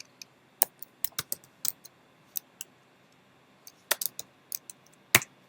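Typing on a computer keyboard: irregular keystrokes in short runs, with a pause of about a second in the middle and one louder key strike near the end.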